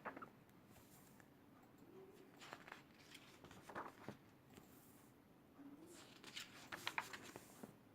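Faint paper rustling from the pages of a large colouring book being handled and turned, a few soft crinkles and taps over near silence, busiest near the end.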